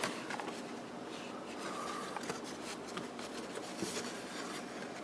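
Soft rustling of paper and cardboard with scattered light clicks, as the contents of an opened box are handled.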